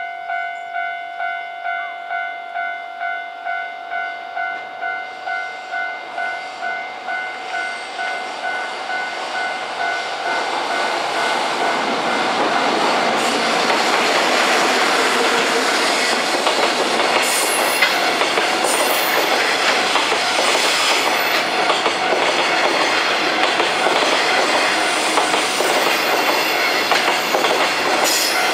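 Japanese level-crossing alarm ringing about twice a second, then drowned out as a freight train hauled by an EF66 electric locomotive runs over the crossing, its wheels clattering over the rail joints.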